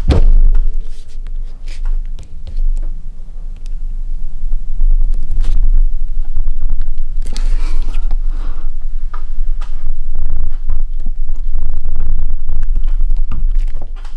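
A heavy, uneven low rumble with scattered clicks and scrapes of metal hand-tool work, as a hand rivet-nut tool sets threaded inserts into drilled holes in a truck cab.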